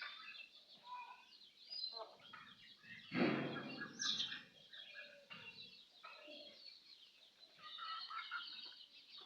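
Chickens and ducks feeding: many short, high chirps mixed with clucking calls, with one louder call about three seconds in.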